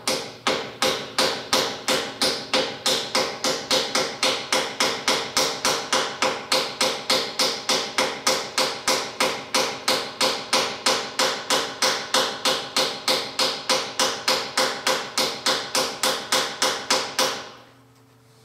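Steady hammer blows, about three a second, on a driver bar seating a new balancer shaft bushing in the bore of a Kubota diesel engine block, each blow with a metallic ring; the hammering stops about a second before the end.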